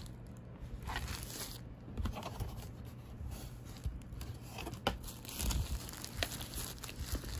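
Thin plastic bag crinkling and rustling in irregular crackles as it is handled and pulled off a UV LED nail lamp.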